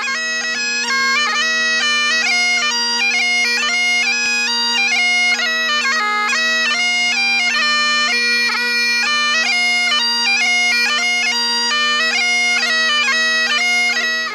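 Great Highland bagpipe playing a quick melody on the chanter over its steady, unchanging drones. The piping cuts off abruptly at the end.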